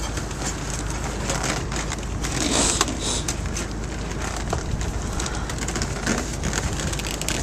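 Baling wire being threaded and twisted around a bale: many small metallic clicks and rattles over a steady low machine hum.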